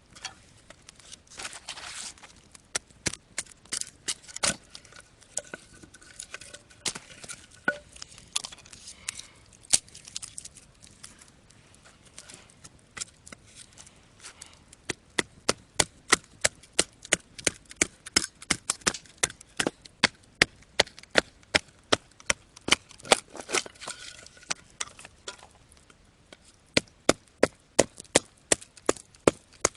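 Firewood being chopped: sharp wooden strikes, scattered at first, then a steady run of about two or three a second through the middle and again near the end.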